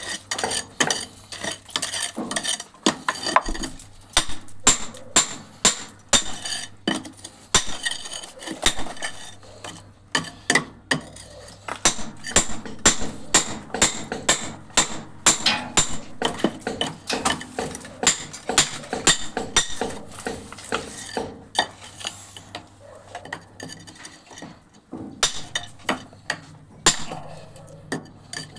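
Metal tools clinking and knocking during plumbing work: sharp metallic strikes, several a second, with a ringing edge. They thin out briefly about three-quarters of the way through, then pick up again.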